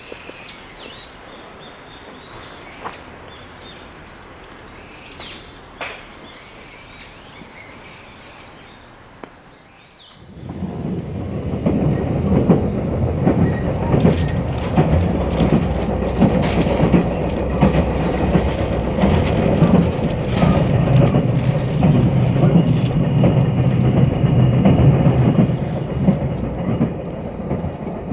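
A loud, steady rumbling and rattling of a moving vehicle starts abruptly about ten seconds in. Before that there is only quiet outdoor ambience.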